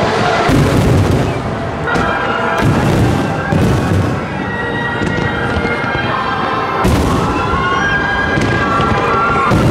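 Aerial fireworks shells bursting in a series of booms, several close together in the first four seconds and another about seven seconds in.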